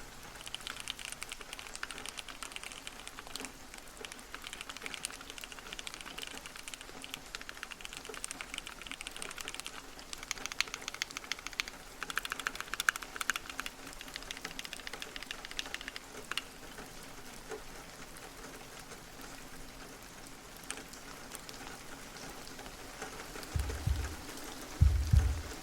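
Typing on a Keychron Q60 mechanical keyboard with TTC HEY linear switches and polycarbonate keycaps: a rapid, dense clatter of keystrokes that thins out and softens after about two-thirds of the way through. A few deep thumps come in near the end.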